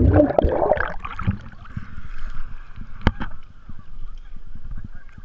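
Underwater bubbling and gurgling of a swimmer blowing air out through her nose and mouth, heard with the camera submerged and loudest in the first second. Then water sloshes around the camera as it breaks the surface, with a sharp knock about three seconds in.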